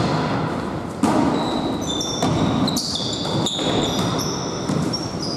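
Volleyball rally on an indoor court: several sharp hits of the ball, roughly a second apart, with many short, high sneaker squeaks on the gym floor between them.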